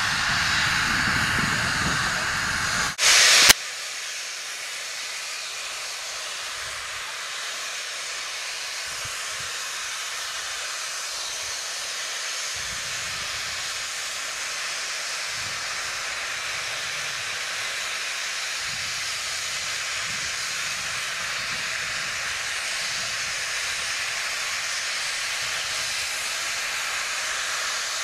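Steady hiss, with a short loud crackling burst about three seconds in.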